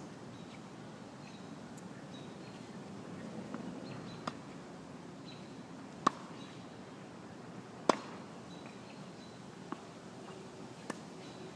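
Tennis ball being hit with rackets and bouncing on a hard court during a rally: sharp pops about every two seconds, starting about four seconds in, the loudest two near the middle.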